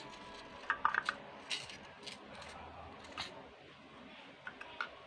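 Light plastic clicks and taps as thread spools and a clear plastic sewing-kit case are handled, in a handful of short clusters, the loudest about a second in.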